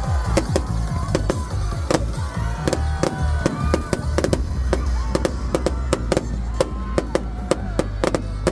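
Fireworks display: many sharp bangs of bursting shells, several a second, over loud music with a heavy bass.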